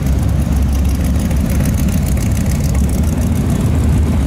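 The engine of a red third-generation Chevrolet Camaro drag car running at low speed as it rolls slowly by, towing a trailer: a loud, steady, deep rumble.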